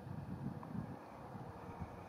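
Faint wind buffeting the microphone, with a low, uneven rumble.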